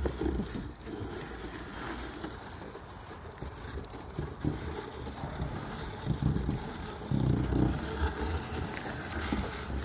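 Cardboard boxes scraping and sliding along a concrete sidewalk as a toddler pushes them, in uneven scrapes that grow louder between about six and eight seconds in.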